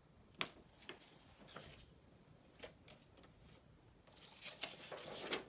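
Sheets of construction paper and a paper word card being handled: a few light taps in the first three seconds, then paper rustling and sliding as the sheets are sorted, louder near the end.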